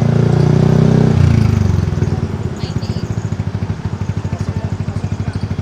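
Yamaha NMAX 155 scooter's single-cylinder engine running through an Akrapović full exhaust, held at raised revs for about a second, then dropping back to a steady, evenly pulsing idle.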